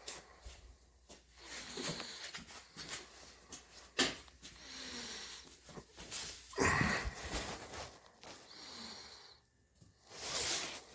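A Shiba Inu sniffing and snuffling close to the microphone in short, noisy breaths and snorts, with a sharp click about four seconds in.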